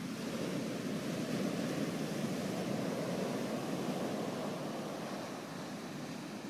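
Ocean surf breaking and washing up the beach: a steady low rush of noise that swells slightly and then eases, with some wind on the microphone.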